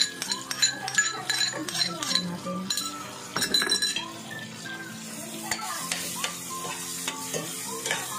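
Shrimp sizzling in butter-garlic sauce in a stainless steel pan, with a spoon scraping mashed salted egg out of a bowl and a ladle stirring and clinking against the pan.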